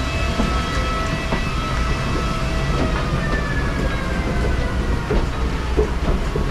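Steady low rumble of an airliner cabin, with faint high whining tones over it, one of them slowly falling in pitch midway through.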